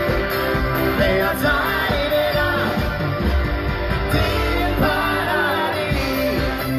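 Live band playing an upbeat pop-rock dance song with a steady drum beat, guitar and singing.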